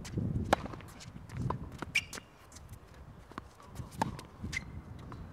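Tennis ball being struck by rackets and bouncing on the court during a rally: a series of sharp pops, the loudest about half a second in and another near two seconds in.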